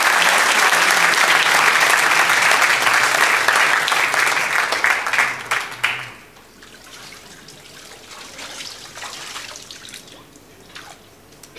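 Congregation applauding, the clapping dying away about six seconds in; after that, quieter splashes and drips of water from the baptismal pool.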